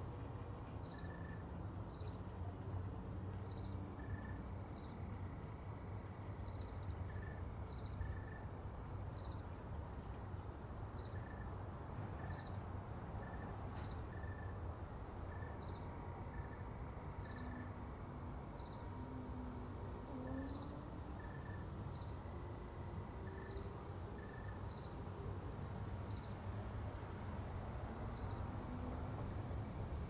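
Outdoor ambience of short, high chirps repeated about once or twice a second, with a lower chirp joining in now and then, over a low steady rumble.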